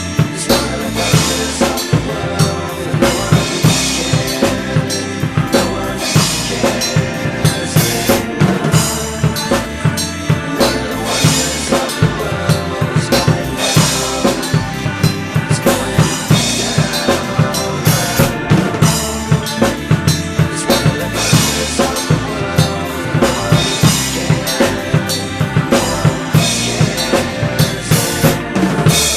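Drum kit played along with a recorded rock song: steady bass drum and snare hits over the band's music. The drumming stops right at the end.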